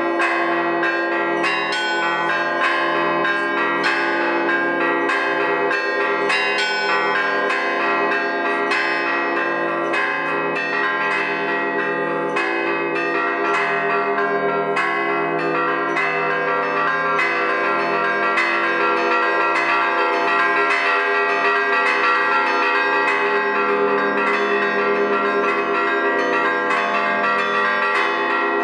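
Russian Orthodox church bells played by one bell-ringer in a festive Easter peal. Many bells are struck in a rapid, unbroken pattern over the steady hum of the larger bells.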